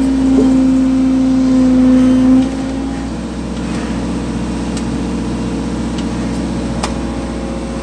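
Excavator's diesel engine and hydraulics running under load, heard from inside the cab: a loud, steady hum with a strong tone that cuts off about two and a half seconds in, after which the machine drones on more quietly as the hanging drain cover is set down.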